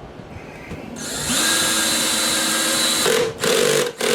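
Cordless drill-driver, clutch set low, running as it drives a 1-inch flathead Phillips wood screw into soft pine. It starts about a second in, steps down in pitch partway, and stops twice briefly near the end.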